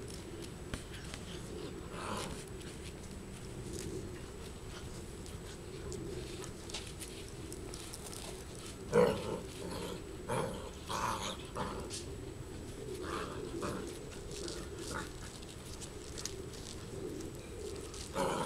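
Irish setter puppies play-fighting, giving short yelps and growls in scattered bursts, loudest about nine seconds in, over a steady low background hum.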